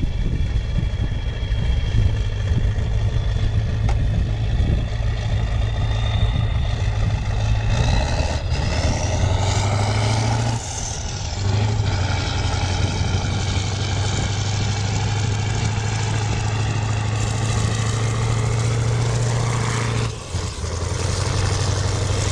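A heavy vehicle's engine running steadily, its pitch rising briefly about nine seconds in.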